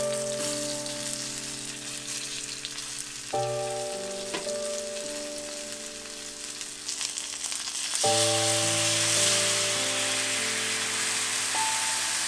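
Skin-on chicken pieces sizzling as they fry in a nonstick frying pan. The sizzle grows louder and more vigorous about two-thirds through, as teriyaki sauce of soy sauce, mirin and rice wine goes into the hot pan and bubbles. Soft background music plays throughout.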